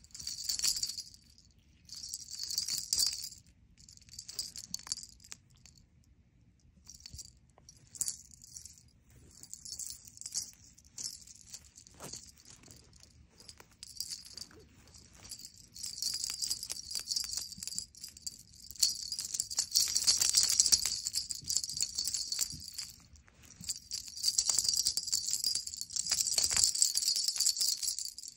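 Feather wand cat toy jingling in repeated shaken bursts as a kitten bats at it; the bursts grow longer and louder in the second half.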